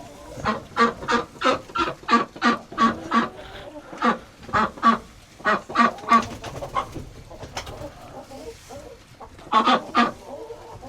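Domestic ducks quacking: a rapid run of loud quacks, about two a second, then a lull and a short burst of quacks near the end.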